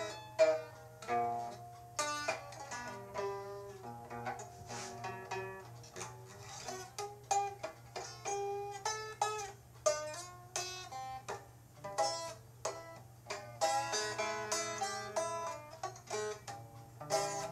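Music on a plucked string instrument, picking quick runs of short notes.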